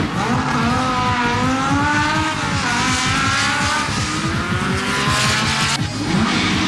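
Honda hatchback drag car's engine revving hard as it accelerates down the strip, its pitch climbing and dropping a few times, over a noisy hiss of tyres. The sound changes abruptly near the end.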